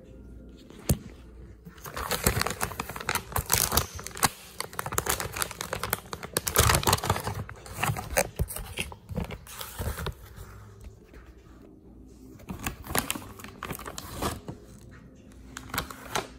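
Plastic bag of dried beef esophagus dog chews being opened and rummaged, crinkling and crackling in bursts. The crinkling is heaviest for several seconds in the first half, then comes back in shorter bursts. There is a single sharp click about a second in.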